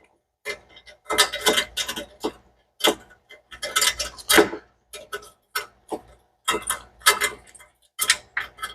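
Hand ratchet clicking in short runs as it backs the nut off a V-band exhaust clamp on a turbo crossover pipe.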